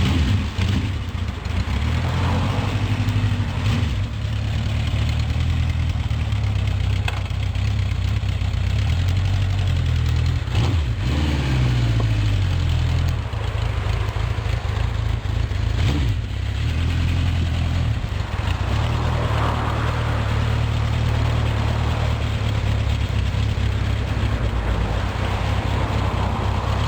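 Honda CB750 K0's air-cooled inline-four engine running steadily at idle through its exhaust. It is revved up and falls back about eleven seconds in, and starts to rise again near the end.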